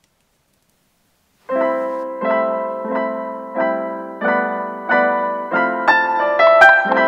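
Silence, then background piano music starts about a second and a half in: a steady pattern of repeated chords, with higher notes added near the end.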